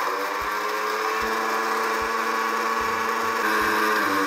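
Electric mixer grinder (mixie) running steadily at speed with its steel jar, grinding chocolate biscuits into powder.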